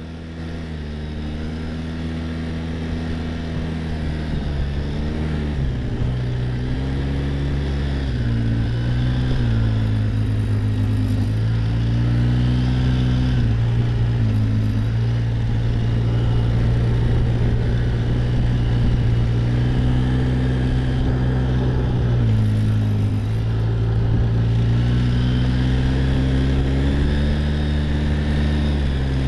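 Quad bike (ATV) engine running while riding along, its pitch rising and falling again and again as the throttle opens and closes. It gets louder over the first several seconds.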